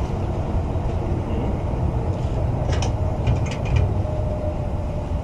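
Steady low rumble of an idling truck engine, with a quick run of sharp clicks about three seconds in from a ratchet strap being cranked tight.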